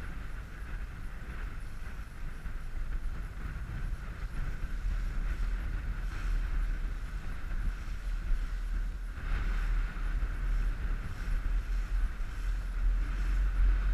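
Wind buffeting the microphone as a low rumble, over the steady drone of an inflatable coach boat's outboard motor and water rushing along its hull.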